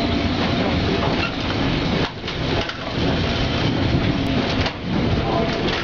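Electric street tram running on its rails: a loud, steady rumble and clatter with scattered knocks, easing off briefly twice.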